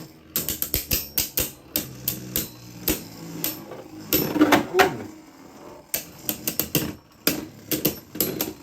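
Two Beyblade Burst spinning tops battling in a plastic stadium: a steady spinning hum broken by many sharp clicks and knocks as they collide. There is a denser grinding clash around the middle.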